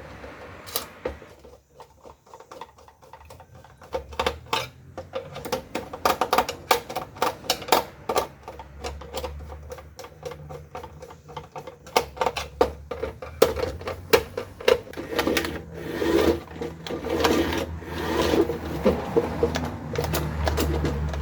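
Small plastic parts of a toy RC car clicking and rattling as they are handled, in quick irregular clicks and taps, over a low hum that comes and goes.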